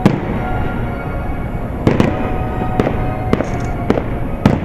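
Aerial firework shells bursting: about seven sharp bangs at irregular intervals, with music playing underneath.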